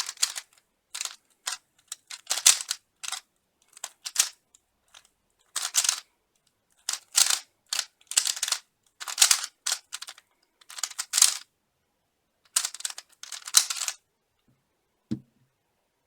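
Speedcube (Rubik's-type puzzle cube) being turned fast by hand during a speed solve: irregular bursts of plastic clicking and clacking as the layers are spun. A single low knock near the end.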